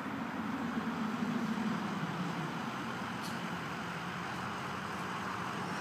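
A vehicle driving past on the road, its engine and tyre noise swelling about a second in and fading away, over steady outdoor background noise.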